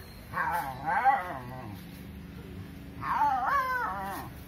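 Dog giving two long, wavering crying barks, about a second each, the second about three seconds in: distressed, territorial calling to drive a monkey away.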